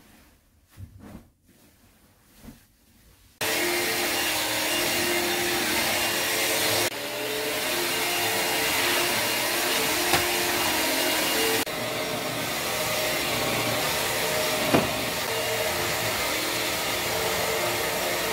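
Faint rustling of a duvet being shaken and folded, then about three seconds in a stick vacuum cleaner starts running with a steady hum and whine over a wooden floor. There is a single sharp click near the middle of the vacuuming.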